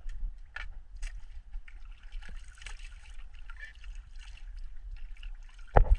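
Water splashing and trickling against a small fishing boat over a steady low rumble, with one loud knock near the end.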